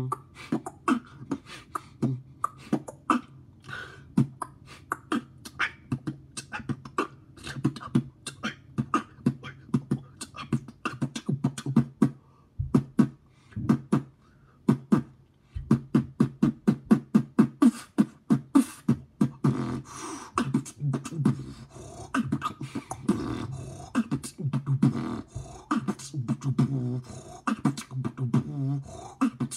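Solo beatboxing freestyle: mouth-made kick, snare and hi-hat sounds in a steady rhythm. There is a brief pause a little before halfway, and the pattern gets denser with a low hummed tone in the last third.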